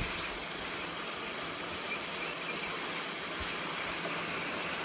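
Hot-air soldering gun running, a steady rush of blown air with a constant low hum, heating flux on a circuit board to loosen balled solder.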